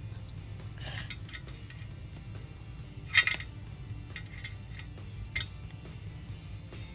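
Background music with a few sharp metallic clinks over it, about one, three and five seconds in, the loudest about three seconds in: metal parts of a gymnastics kip bar being handled during assembly.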